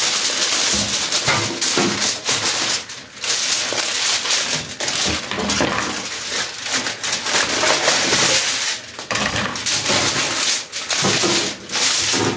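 Aluminium foil crinkling and rustling as it is unrolled off the roll and pressed flat over a baking tray: a dense, irregular crackle.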